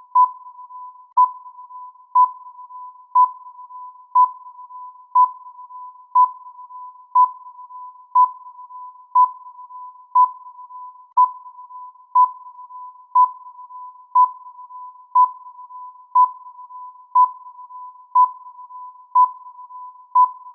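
Countdown timer beeping once every second, each short beep at the same pitch, with a fainter steady tone of that pitch running between the beeps.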